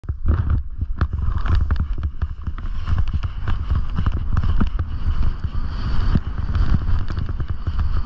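Skis running through deep powder snow: a steady hiss of snow with many irregular sharp knocks and pops from the skis and gear, over a heavy low rumble of wind on the microphone.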